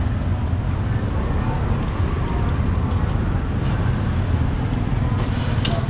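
Steady low rumble of street traffic, with a couple of faint clicks.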